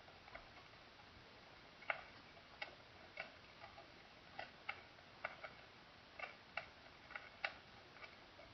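Recorded heart sounds: faint, sharp clicks coming in pairs about once a second, in the rhythm of a heartbeat.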